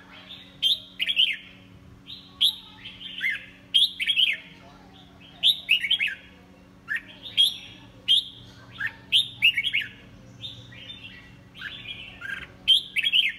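Red-whiskered bulbul singing in its cage: loud, short phrases of quick falling whistled notes, repeated about once a second.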